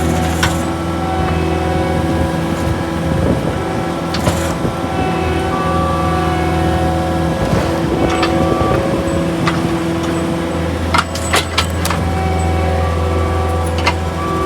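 Engine of a post-hole drilling machine running at a steady speed while the coring bit is worked to free a loose piece of rock from the hole. There are a few sharp knocks about eleven seconds in.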